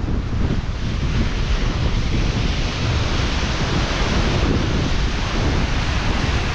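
Wind buffeting the microphone over the steady wash of ocean surf. The low rumble of the wind is the loudest part, and there are no distinct knocks or voices.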